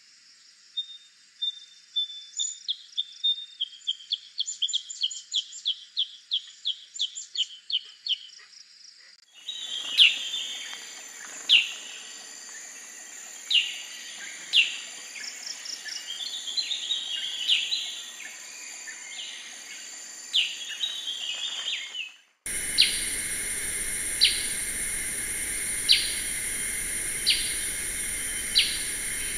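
Black-headed bulbul calls from spliced recordings: first a quick run of repeated high notes, then, after a cut about nine seconds in, scattered sharp calls over background noise. After another cut about 22 seconds in, sharp calls repeat roughly every second and a half over a steady high hiss.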